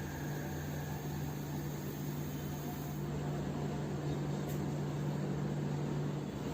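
Steady low hum over a constant hiss, with no change through the stretch.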